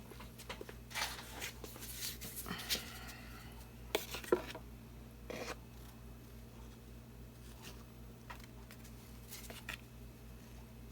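Paint cups and tools being handled on a work table: scraping and rustling, with two sharp clicks about four seconds in, as more base paint is mixed up.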